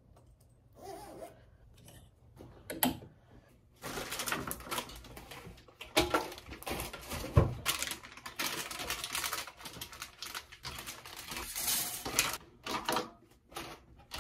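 Household handling sounds: rustling with a run of small clicks and taps as things are picked up and set down on a kitchen counter. Faint at first, busier from about four seconds in.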